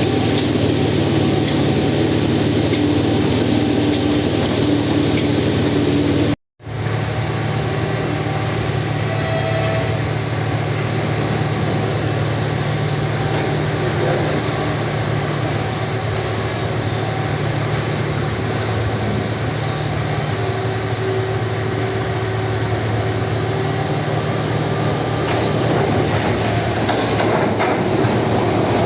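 Rail-mounted track-laying machine (Plasser SVM-1000) running on the rails: a steady low engine hum under continuous mechanical rail noise, with occasional brief squeals. The sound cuts out for a moment about six seconds in.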